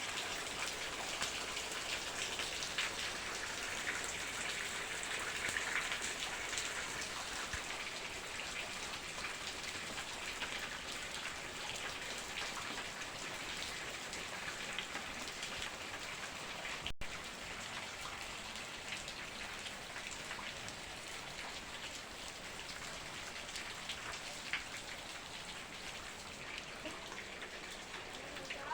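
Steady rain falling, a continuous hiss with many separate drop ticks, easing slightly toward the end.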